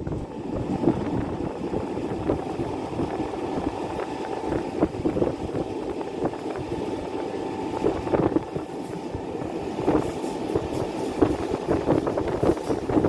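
Appenzeller Bahnen rack-railway train running, heard from aboard: a steady rumble of wheels on rail with frequent clicks and knocks.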